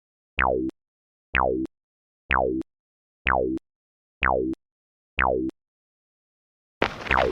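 A cartoon sound effect: a short downward-swooping 'pew' repeated six times, about once a second, with silence between. Music comes in near the end.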